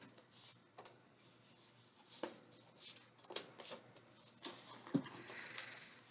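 Faint, scattered taps and rustles of a deck of oracle cards being shuffled by hand.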